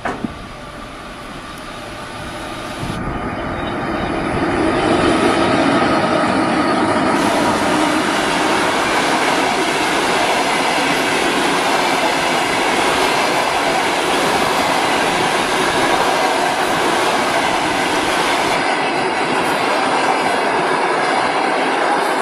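Passenger train passing close by behind an electric locomotive. The sound builds over the first few seconds as the train arrives, then holds as a steady rush of coach wheels on the rails, with clickety-clack over the rail joints.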